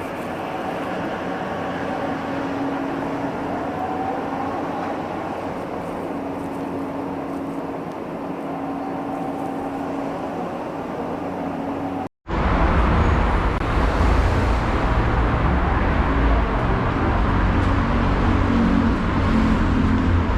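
Mexico City Metro train running: a steady rumble with a faint motor hum. About twelve seconds in it cuts off abruptly to louder road traffic noise with a deep rumble.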